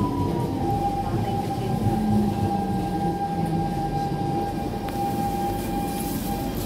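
Interior of a Siemens C651 metro car running on the track: a low rumble with a steady high whine that stops near the end.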